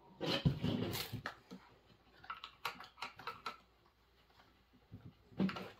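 Clicks, knocks and light rattles of plastic and metal parts as a new chainsaw is handled and a stuck cover is worked at by hand. There is a busy cluster near the start, scattered lighter clicks in the middle, and another short cluster near the end.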